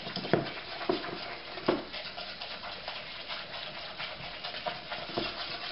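A spoon beating egg into creamed butter and sugar in a glass mixing bowl: quick, irregular scraping and slapping of the batter, with a few louder knocks of the spoon against the bowl.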